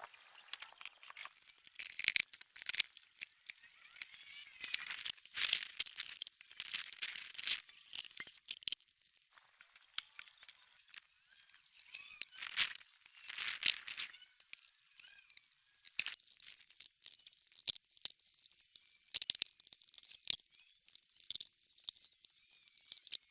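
Hand work on parts: irregular light scraping and rubbing with scattered clicks and small knocks.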